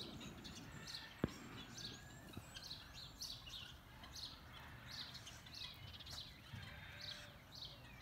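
Small birds chirping, a steady run of short high chirps at about two a second with a few whistled glides, and a single sharp click about a second in.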